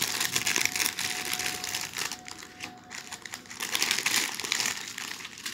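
Thin clear plastic zip-lock packets crinkling and rustling as they are handled, in irregular crackles.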